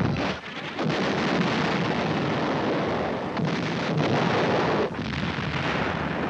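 Battle sound effects: explosions and gunfire in a loud, continuous din, with a brief lull about half a second in.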